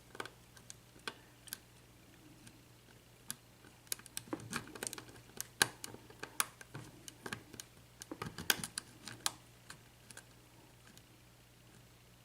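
Lock pick working the pins inside a miniature ABUS 7230 padlock during single-pin picking: irregular light clicks and scratches, thickest in the middle stretch as the pins are probed and set.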